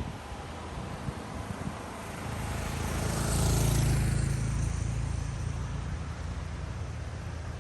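A car passing by, its tyre and engine noise swelling to a peak about halfway through and then fading, over a steady low rumble of road noise.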